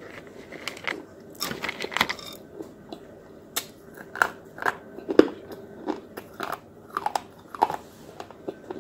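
A person biting and chewing hard, brittle white sticks close to the microphone: a string of sharp, crisp crunches at an irregular pace, roughly one or two a second, the loudest about halfway through.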